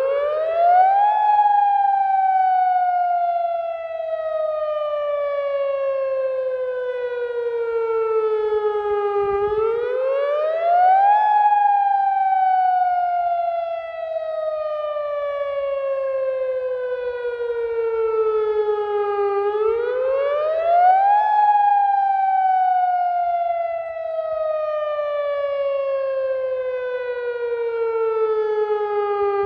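AHAB all hazards alert broadcast siren, an electronic tsunami warning siren, sounding a test wail: the pitch climbs quickly, then slides slowly down over about eight seconds, three times over.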